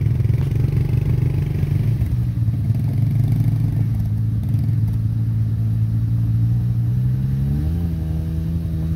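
ATV engine running steadily under load as the quad pushes through a flooded mud hole; the revs rise about three-quarters of the way in and waver up and down near the end.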